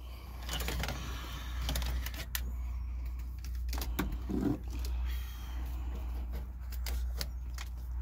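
Small clicks and rustling as a GPS unit is handled and fitted onto a suction-cup dashboard mount in a truck cab, over a steady low hum.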